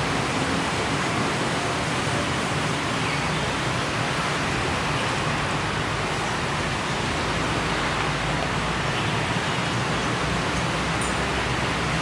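Steady wash of motor traffic from a main road, an even noise with no single vehicle standing out.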